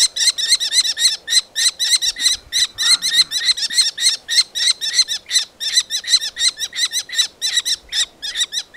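Common kestrel giving a fast, unbroken series of high-pitched kee-kee-kee alarm calls, about six a second, which cut off at the end.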